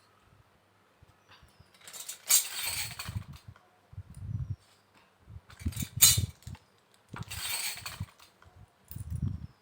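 Small plastic miniature kitchen toy pieces being handled, clinking and rattling, with three bursts of rustling packaging and soft knocks as they are set down.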